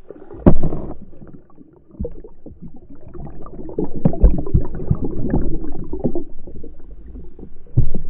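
Water gurgling and splashing, heard muffled, with many irregular pops and knocks; a loud knock comes about half a second in and another near the end.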